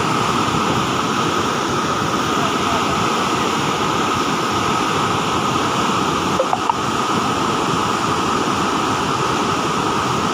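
Loud, steady rush of water pouring through the open gates of a dam spillway and churning into white water below.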